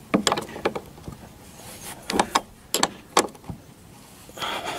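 A 13 mm ring spanner working a nut and bolt tight, giving irregular sharp metallic clicks and clinks as it is turned and repositioned, in a quick cluster at the start and a few more around two to three seconds in.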